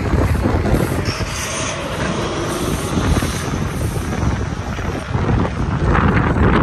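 Steady rumble of city street traffic, with a brief high squeal about a second in.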